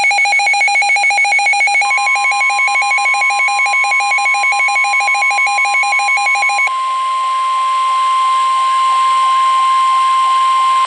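NOAA Weather Radio warning alarm: the steady 1050 Hz alert tone, which signals that an emergency warning message follows. It is joined for the first seven seconds by the receiver's rapid pulsing electronic alert beep, which stops suddenly, leaving the single steady tone.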